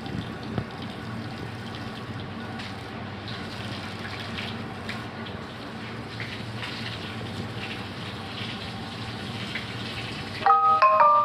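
Running water splashing steadily as floors and surfaces are washed down of sandstorm dust. Near the end a short run of bright chiming notes comes in.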